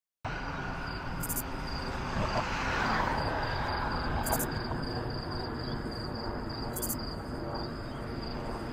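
An airplane droning overhead, swelling a little about three seconds in. Behind it an insect chirps steadily in short high pulses, about three a second. The sound cuts in abruptly just after the start.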